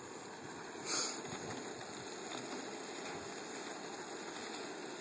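Steady hiss of a Coleman dual-fuel camp stove burning under a small pot of Spanish rice as it cooks, with one brief louder noise about a second in as the spoon stirs.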